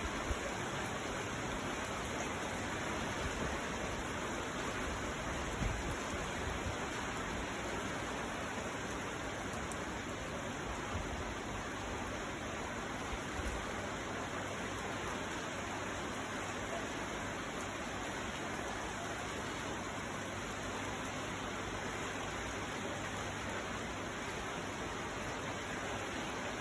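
Heavy rain falling in a steady downpour, an even hiss.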